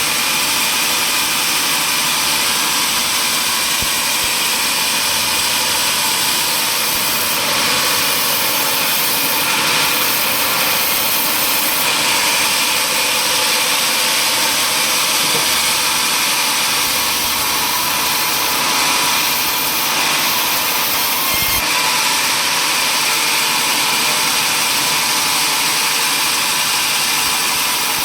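Power saw running steadily while cutting through wood, a loud continuous whine and hiss with little change in level.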